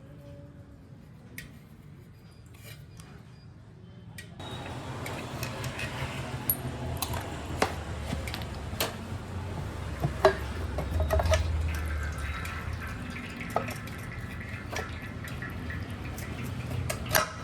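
Metal tools and engine parts clinking and clicking at intervals as the clutch side of a motorcycle engine is taken apart by hand. A steady low rumble comes up underneath about four seconds in.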